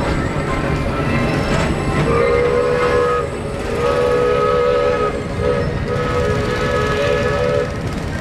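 Wedway PeopleMover car rolling along its elevated track: a steady low rumble. From about two seconds in until near the end, long held horn-like tones sound over it, broken briefly a few times.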